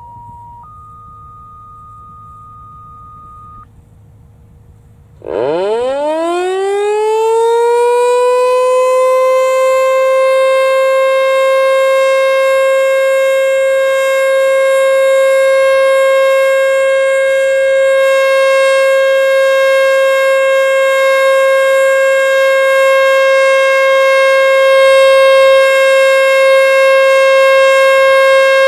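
American Signal Tempest T-121 outdoor warning siren winding up about five seconds in, its pitch climbing and settling into one steady, loud tone with many overtones: the steady Alert signal of a storm siren test. Before it, two quieter steady beep tones sound, the second higher and about three seconds long.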